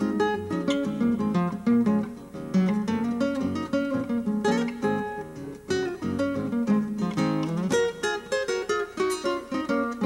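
Acoustic guitar music, with plucked notes and strums.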